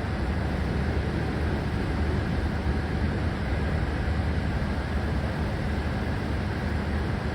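Steady low rumble with a hiss over it, unchanging throughout: background room noise in the lecture hall recording.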